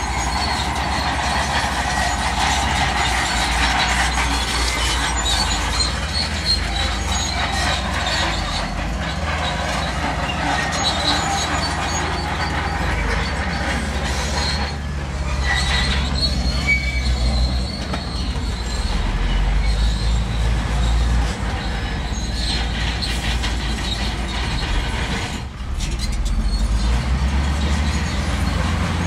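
Crawler bulldozer working: a steady diesel engine rumble under the squealing and clanking of its steel tracks.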